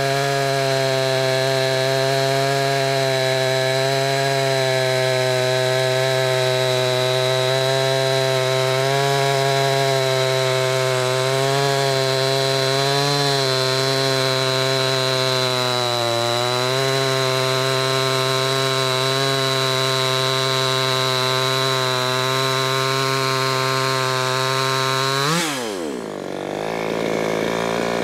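Two-stroke Chinese-clone chainsaw running at full throttle while cutting through a log, its pitch steady apart from a couple of brief dips under load. Near the end the throttle is released and the engine drops quickly to idle.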